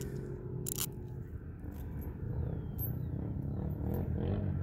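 Low wind rumble on the microphone, with a sharp click about a second in as a small metal pick is handled against a screw.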